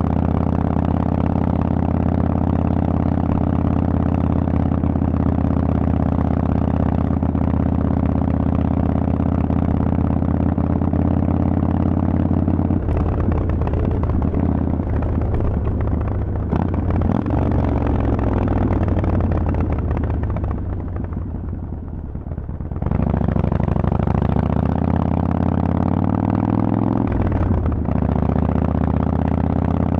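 Harley-Davidson Forty-Eight's air-cooled 1200 cc V-twin running loud through Vance and Hines pipes while riding. It holds a steady note for about the first dozen seconds, then the note changes abruptly. It falls quieter for a couple of seconds past the middle, then picks up again and rises in pitch before settling steady near the end.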